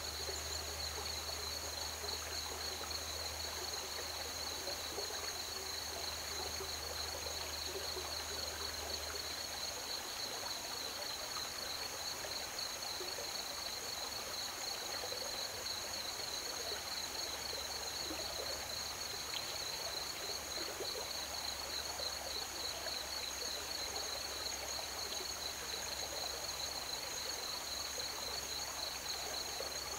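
Crickets chirping in a steady, continuous high-pitched chorus over the even rush of river water.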